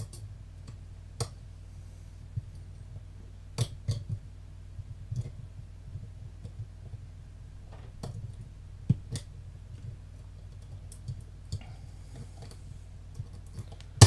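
Scattered sharp metallic clicks from a wire lever pick and tension wire working the two levers inside an ERA Secure 2-lever padlock, irregular and a few seconds apart, with a loud click at the very end as the bolt gives and the lock opens.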